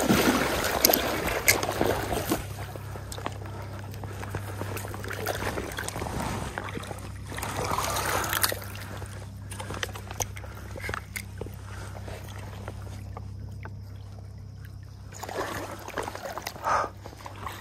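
River water sloshing and splashing around a half-sunken log as a wading angler works a hooked smallmouth bass tangled on it. Louder at the start and again about seven seconds in, over a steady low hum.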